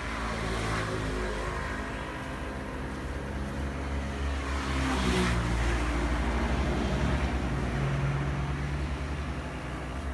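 Road traffic on a highway: vehicle engines running with a steady low hum, one vehicle passing loudest about halfway through.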